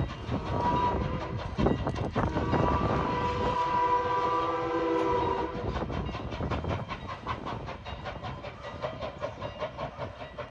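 Canadian National #89, a 2-6-0 steam locomotive, sounding its chime whistle, a chord of several notes held for about five seconds. After the whistle stops, the train runs on with a fast, even beat that fades away.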